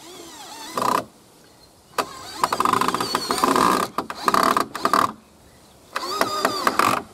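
Cordless drill/driver driving screws into timber in three runs: a short burst about a second in, a long run of about three seconds, and another short run near the end, the motor's pitch wavering as it takes the load.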